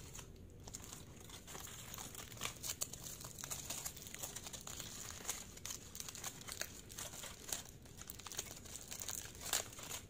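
Aluminium foil wrapping around a kebab crinkling and crackling as hands peel it open, in irregular crackles with a louder one near the end.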